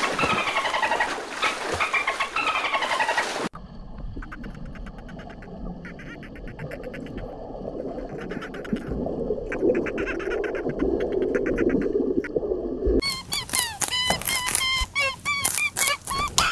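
Dolphins vocalising: a few seconds of falling whistles over rushing water, then bursts of rapid underwater clicking over a low rumble. Near the end, a fast run of short, high squeaky chirps.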